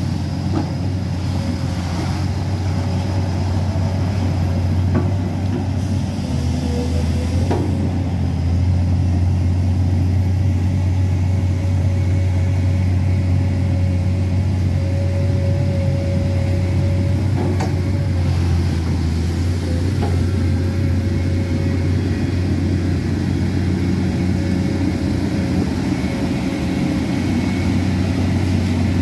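Komatsu PC210 hydraulic excavator's diesel engine running steadily, a strong low drone with a thin, steady higher tone above it. It gets a little louder about eight seconds in, and a few light knocks sound here and there.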